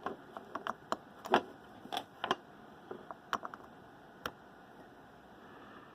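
Irregular small clicks and taps of a microphone being handled, a dozen or so quick ones, thinning out to a single click about four seconds in.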